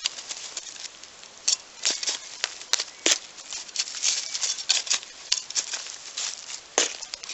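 Wood fire crackling in a makeshift barrel stove, with irregular sharp pops and snaps of burning scrap wood over a faint hiss.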